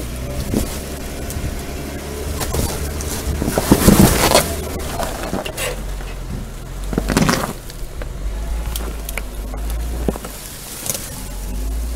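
Jeep Wrangler Rubicon's V6 engine running low and steady at crawling speed while its 35-inch Goodyear Wrangler MT/R tires grind and crunch over rock, dirt and gravel, loudest twice: about four seconds in and again about seven seconds in.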